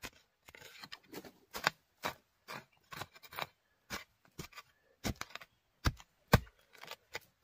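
A long-handled, narrow-bladed digging hoe chopping into loose soil, with irregular strikes about two or three a second and the loudest blow near the end. The hoe is digging out a winter bamboo shoot.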